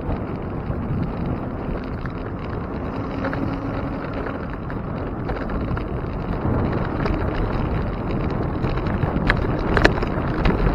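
Wind rush on the microphone and road noise from a moving bicycle, a steady low rush, with a few sharp clicks near the end.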